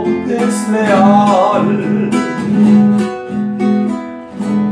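Classical guitar strummed in a huapango rhythm, with a man singing one held, wavering line in the first second or so; the guitar then plays on alone.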